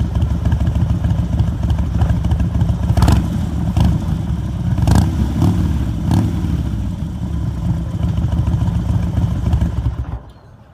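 An engine idling steadily with a fast, even low pulse. A few sharp clicks come about three, four, five and six seconds in, and the sound falls away near the end.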